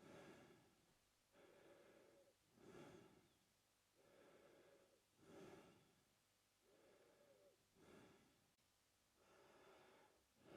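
A man breathing slowly in and out through his mouth, faint, at an even pace of about four breath cycles, each a longer, softer breath followed by a shorter, louder one.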